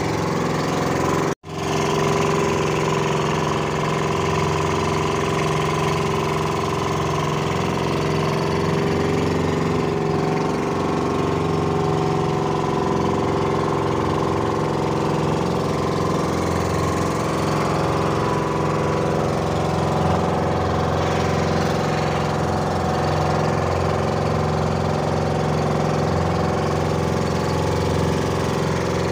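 Small fishing boat's engine running steadily at constant speed while under way, cutting out for an instant once about a second and a half in.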